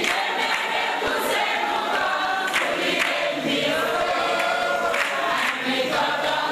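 A crowd of people singing together in chorus, with scattered hand claps now and then.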